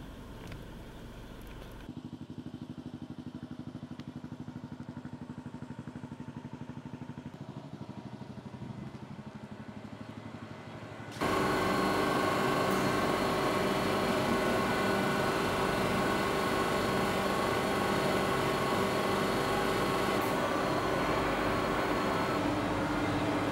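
A quieter low rumble with a fast, even pulse. About eleven seconds in it gives way suddenly to the louder steady drone of a room full of running vintage vending machines: compressor and fan hum with several held tones layered together.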